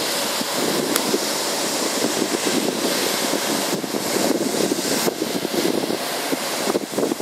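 Taxiing Airbus A330-200's Rolls-Royce Trent 700 jet engines running as a steady rushing hiss, with wind gusting on the microphone.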